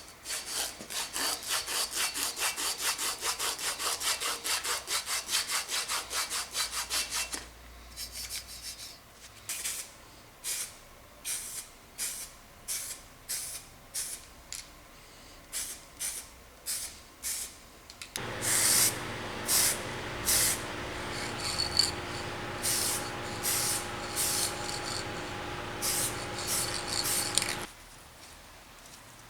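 Hand sanding or rubbing back freshly painted steel, in repeated back-and-forth strokes: quick strokes about four or five a second for the first seven seconds, then slower separate strokes. From about eighteen seconds in, a steady hum with a few held tones runs under the strokes and stops about two seconds before the end.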